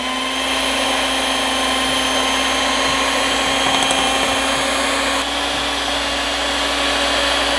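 Electric hand mixer running steadily, its beaters working flour into thick cake batter in a glass bowl: an even motor hum with a steady high tone.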